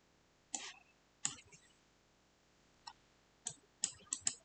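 Computer mouse and keyboard clicks: about seven short, sharp clicks at irregular intervals, several in quick succession near the end.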